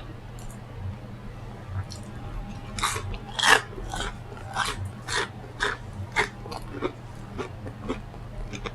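A person chewing food close to the microphone, with crunchy, wet bites and chews about two a second, starting about three seconds in.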